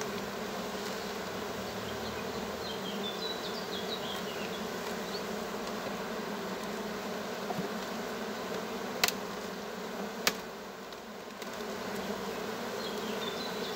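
Honeybees buzzing steadily over an opened hive, a colony swarming over the frames being lifted out. Two sharp knocks sound about nine and ten seconds in.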